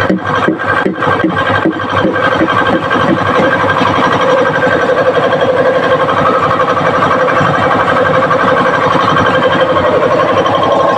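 Tyre changer's turntable motor running as it spins an alloy wheel against the demount head to work the tyre off the rim. Choppy for the first two seconds, then a steady run.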